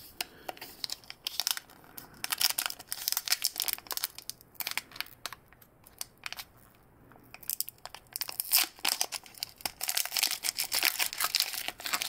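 Foil wrapper of a Pokémon booster pack crinkling and crackling as it is pulled at to tear it open. There is a bout of crinkling from about a second in, a lull around the middle, and more near the end. The wrapper is not tearing open easily.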